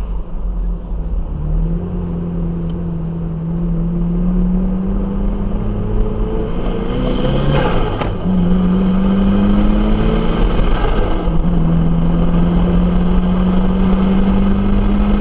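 Turbocharged Toyota Hilux accelerating hard through the gears: the engine pitch climbs steadily in three pulls, dropping at gear changes about eight and eleven seconds in. At the first change the lift-off gives a short rushing turbo flutter, as the truck has no blow-off valve.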